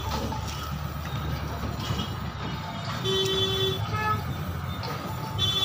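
Steady low traffic rumble with a vehicle horn honking: one toot of under a second about three seconds in, and a brief one near the end.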